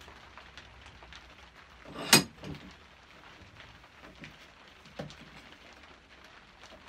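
A single sharp knock as a back saw is worked into a birch-plywood saw-sharpening clamp, followed by a softer knock and, a few seconds later, a small click.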